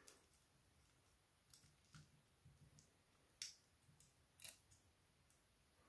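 Near silence broken by a handful of faint, sharp clicks from small tools and parts being handled inside a disassembled smartphone.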